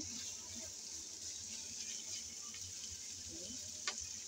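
Carrots, onion and meat sizzling quietly in a nonstick frying pan, a steady hiss. One sharp click near the end.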